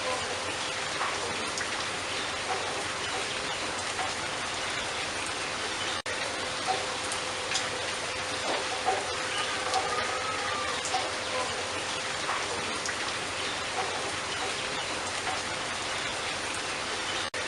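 Steady rain hiss with light pattering, and a faint short bird chirp about ten seconds in.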